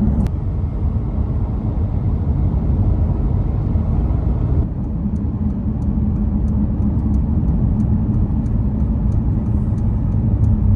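Moving car heard from inside the cabin: steady low engine and road rumble. A faint regular ticking, a little over two a second, comes in about halfway through.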